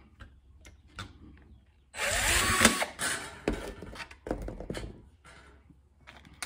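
Cordless drill boring a 3/16-inch hole through a galvanized steel strip after a pilot hole, running for about a second with a rising whine, about two seconds in. Clicks and knocks follow as the drill is handled.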